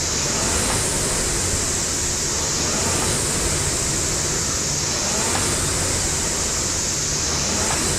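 Fan flywheel of a Concept2-copy air rowing machine whirring steadily, swelling with a rushing whoosh on each drive stroke, about every two and a half seconds.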